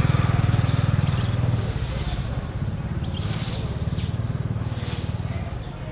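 A low, steady engine rumble with fine even pulsing, a little louder in the first second and a half, with a few short hisses over it.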